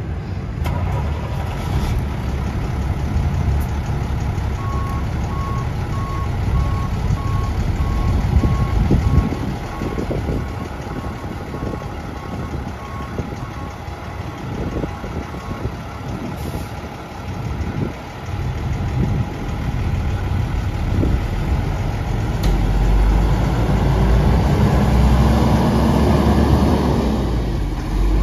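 1999 International 4900 box truck's diesel engine running, with a backup alarm beeping steadily from about five seconds in to about sixteen seconds. Near the end the engine gets louder and rises in pitch as the truck pulls away.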